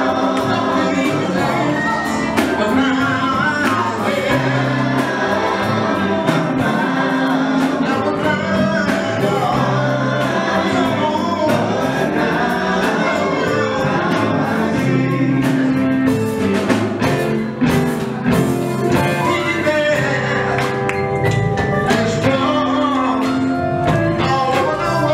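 Male gospel vocal group singing live, a lead voice over the group's harmonies, backed by a band of drum kit, keyboard and electric guitar with a steady drum beat.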